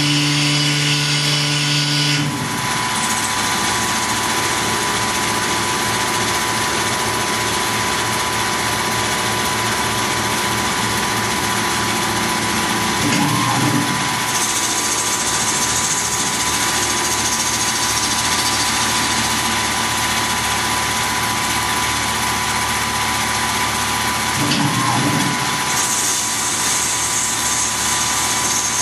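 Tormach PCNC 1100 CNC mill running as a lathe, facing the ends of a brass spacer: steady spindle and machine whine with a constant high tone. The sound changes briefly twice, about eleven seconds apart, as the automatic facing cycle repeats, each time followed by a stretch of higher hiss.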